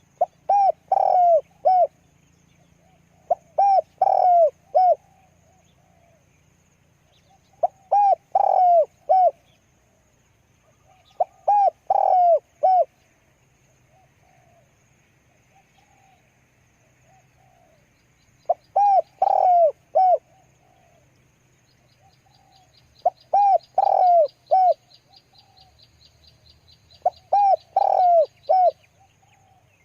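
Spotted dove cooing: phrases of four or five coos, repeated every few seconds. A small bird gives a fast, faint, high trill in the second half.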